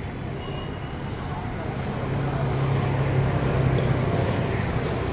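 Low engine and road rumble of a car driving along a city street, with traffic noise. The rumble swells about two seconds in.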